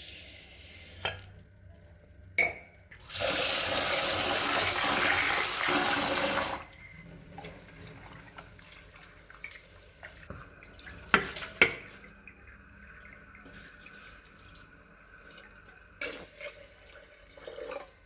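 Kitchen tap running for about three and a half seconds, then shut off abruptly, followed by a few sharp clicks and knocks.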